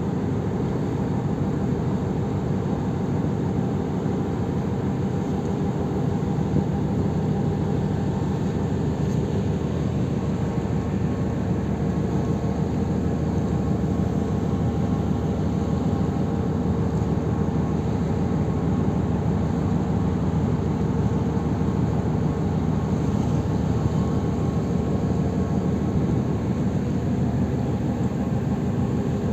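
Steady low drone of a ship under way at sea, a continuous engine rumble with faint steady hum tones that doesn't change.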